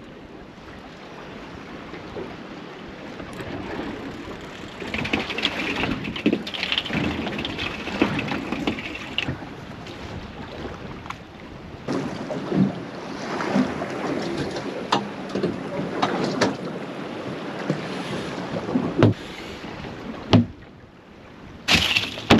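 Wind and water noise on a small boat at sea, with wind buffeting the microphone and a few sharp knocks in the last few seconds.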